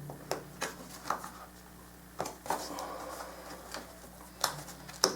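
Cardboard box of a humidifier being pried and tugged open by hand: scattered knocks and clicks of cardboard, with a brief scraping rub about two and a half seconds in.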